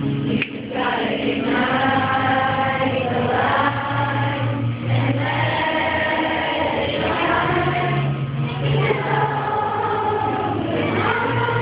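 Group singing: many voices singing a song together in long held notes, phrase after phrase, with steady low notes underneath.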